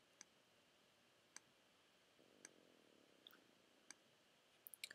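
Faint single clicks of a computer mouse button, about one a second, placing points along a path, with a quick run of three clicks near the end.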